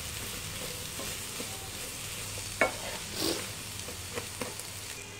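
Prawns, onions and tomatoes frying in a non-stick pan with a steady low sizzle, while a wooden spatula stirs them, scraping and tapping against the pan. There is a sharper knock about halfway through.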